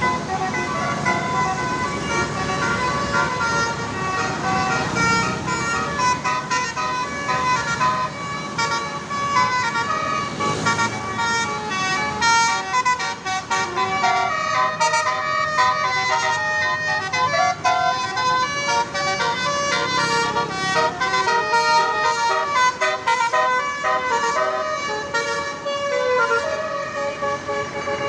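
Bus telolet horn, a Basuri multi-tone air horn, playing a tune: a long run of loud horn notes that change pitch quickly one after another, over a low engine rumble.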